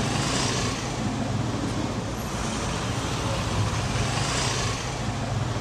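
Street traffic noise: a steady rumble of road traffic, with passing cars swelling up about half a second in and again about four and a half seconds in.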